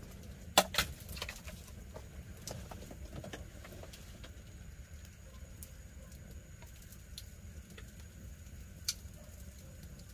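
Bamboo chopsticks clicking and scraping against a split bamboo tube, with two sharp knocks about half a second in and another near the end. A campfire crackles with small scattered ticks over a low steady rumble.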